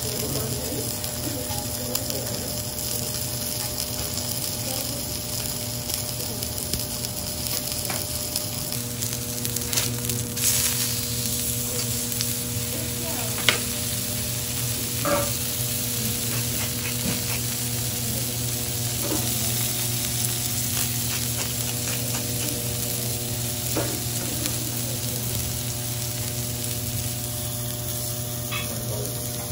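Olive Wagyu fillet steak sizzling steadily on a hot teppanyaki griddle, over a steady low hum, with a few light clicks, one sharper click about halfway through.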